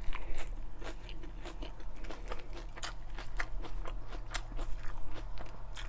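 Crisp iceberg lettuce leaves being bitten and chewed close to the microphone: a steady run of irregular crunches.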